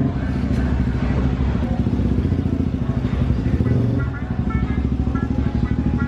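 Motorcycle engine running at idle, a steady low-pitched sound with a fast, even pulse. Faint high tones sound over it in the second half.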